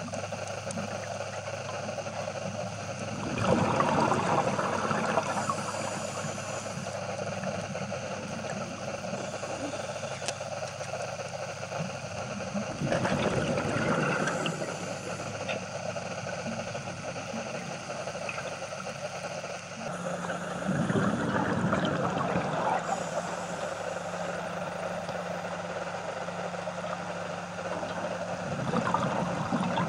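Underwater sound: a steady engine hum carried through the water, tagged as a boat, with four short rushes of bubbling about every eight seconds from a scuba diver breathing out.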